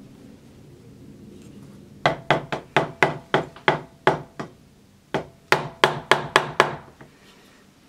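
A narrow chisel being struck in quick light taps as it chops the rim of a drilled hole in a hardwood block: about fifteen taps, nine in a run starting about two seconds in, then a short pause and six more.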